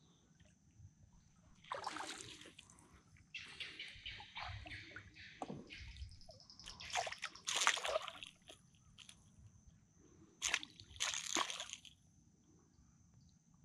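A hooked jeju thrashing at the water's surface on the line, in a series of irregular splashes and sloshes, the loudest a little past halfway and again near the end.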